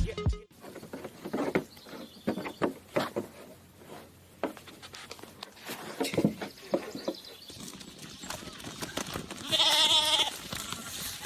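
A single wavering bleat from livestock, about ten seconds in, the loudest sound. Before it come scattered light knocks and rustling.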